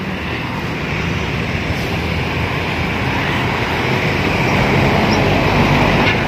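Heavy Shacman dump truck's diesel engine running, a dense steady rumble that grows a little louder over the seconds.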